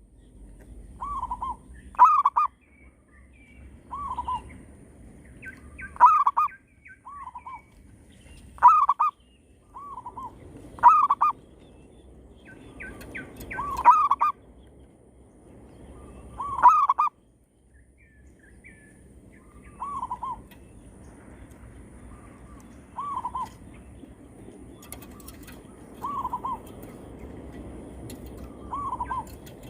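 Zebra doves (perkutut) cooing back and forth in their short, rolling coo phrases. The phrases come loud and about every two seconds at first, then softer and a few seconds apart after about halfway.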